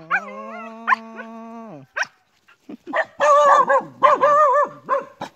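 Dog vocalizing in play: one long held, howl-like whine of almost two seconds, then after a short pause a string of wavering whines and yips.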